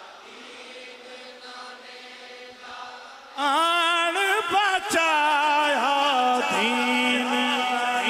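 Faint group voices on a refrain, then about three seconds in a man's voice through a microphone comes in loud, singing a long, wavering, ornamented line of a devotional Punjabi chant (manqabat) in praise of Hussain.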